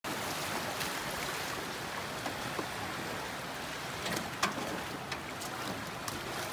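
Small waves washing over a shallow sandy beach, a steady hiss, with a few short sharp sounds on top, the loudest about four and a half seconds in.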